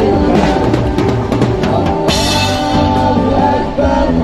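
Live band playing a religious song: singing over drum kit, bass and other instruments, at a steady loud level.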